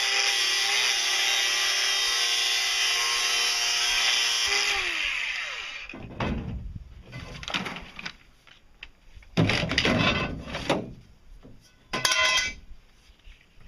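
Angle grinder running steadily on a PVC pipe, then switched off about four and a half seconds in, its whine falling as the disc spins down. After that come irregular clattering knocks and scrapes as the plastic pipe is handled against the fiberglass hull.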